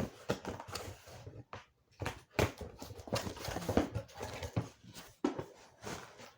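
Irregular knocks, scrapes and rustles of a package being handled and worked open by hand.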